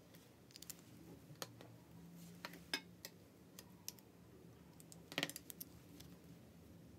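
Faint scattered clicks and light taps of pens being handled on a tabletop, with a quick cluster of clicks about five seconds in.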